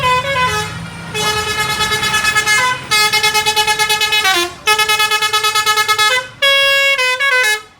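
Indonesian telolet bus horn of the Basuri type playing its multi-note tune in several phrases, the notes stepping up and down with a fast warble.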